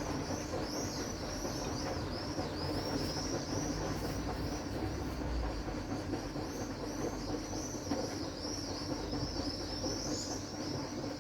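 Scharpf front-loading washing machine running, its drum turning with a steady rumble and hum of motor and tumbling wash, while a high chirping squeak repeats about twice a second.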